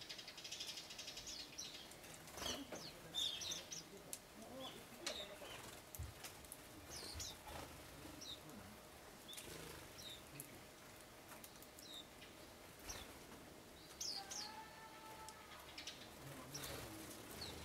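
Small birds chirping in short, high calls scattered throughout, with wing flutters and light clicks as they land and take off. A lower, drawn-out call with several tones comes about three-quarters of the way through.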